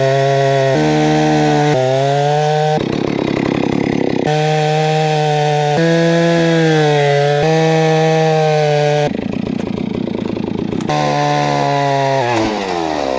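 Gas chainsaw running at high revs, its pitch shifting as throttle and load change, with two stretches of rougher noise where the chain bites into the wood. Near the end the engine revs up and drops back.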